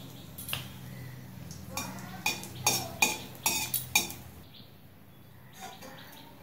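Metal spatula scraping and clinking against an aluminium kadai as a dried red chilli is turned in a little hot mustard oil. The strokes come in a quick run in the middle and die down near the end.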